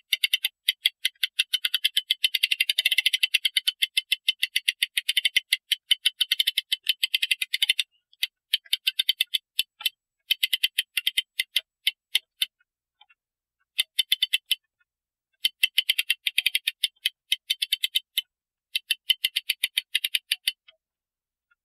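Clock mainspring winder being cranked to wind up a mainspring, its ratchet clicking rapidly over the toothed wheel. The clicking runs unbroken for about eight seconds, then comes in shorter runs with pauses between.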